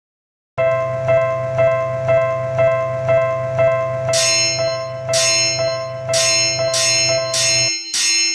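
Level-crossing warning bell ringing its 'kan-kan' about twice a second. About four seconds in, a second, brighter bell joins with louder strikes about once a second; both cut off suddenly near the end.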